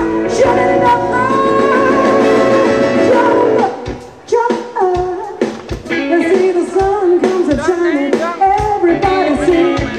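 Live jazzy soul band with a woman singing: long held vocal notes over full accompaniment, a brief drop about four seconds in, then a lighter rhythmic accompaniment of short, regular strokes under the voice.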